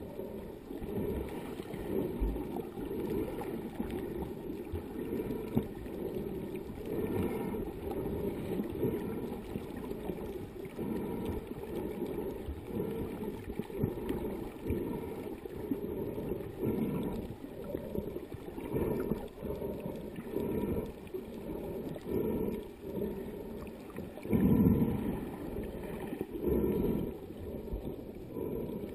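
Muffled water sloshing and churning heard by a submerged camera, rising and falling in surges, with one louder surge about three-quarters of the way through.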